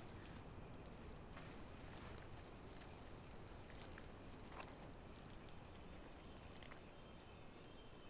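Faint tropical forest ambience: insects calling in several steady high tones, with a few short clicks scattered through it.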